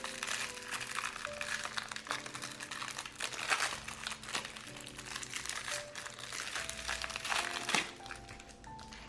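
Packaging of a washi tape roll crinkling and rustling as it is handled and opened, easing off near the end, over soft piano music.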